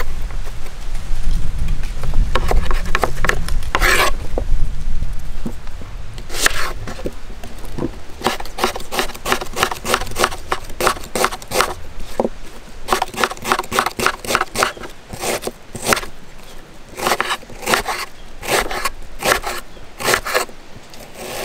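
Runs of quick scraping and tapping strokes, a few a second, from hand food preparation. A low rumble sits under the first few seconds.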